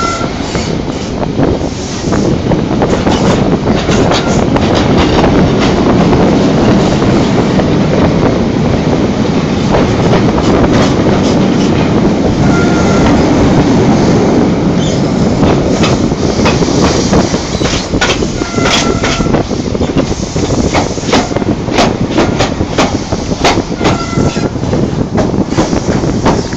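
A passenger train's running noise heard from inside a coach: a steady rumble of wheels on rail with irregular clicks over joints and a few brief high wheel squeals.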